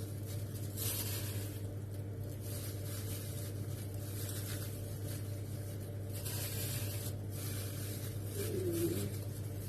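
Steady low hum with soft, faint rustling and handling noises, with no distinct knocks or clatter.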